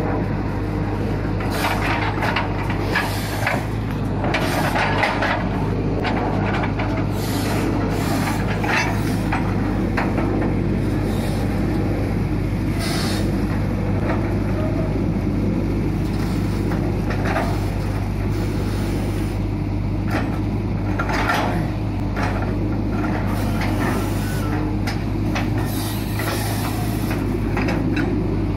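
Long-reach excavator's diesel engine running steadily under load, with its hydraulics working the boom, and short bursts of scraping and sloshing at irregular intervals as the bucket digs and lifts wet mud from the drain.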